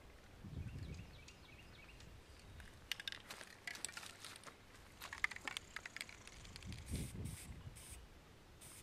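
Faint crackling and rustling of dry leaves and grass as someone moves about, then a few short hisses from an aerosol spray paint can near the end.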